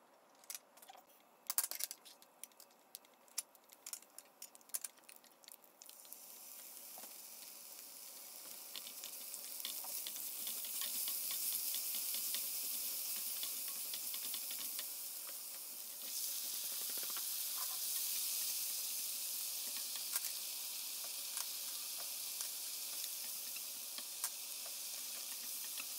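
Tadka frying in hot oil in a nonstick skillet. At first there are only a few scattered clicks. From about six seconds in comes a sizzle with crackling as whole spices, garlic-ginger and curry leaves fry and are stirred with a wooden spatula. The sizzle steps up at about sixteen seconds, and onion and tomato are frying by the end.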